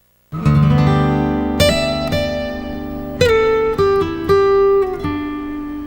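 Opening music of a children's TV theme: acoustic guitar strummed chords with plucked notes, each chord ringing out before the next.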